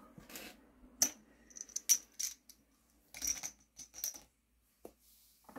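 Small plastic action figures being picked up off a hard desk and handled: a scatter of light clicks and taps.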